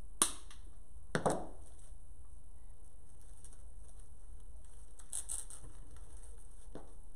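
Craft handling noise as hands work the artificial flowers and greenery of the arrangement: a sharp click just after the start, a quick double click about a second in, faint rustling later, and a small click near the end, over a steady low hum.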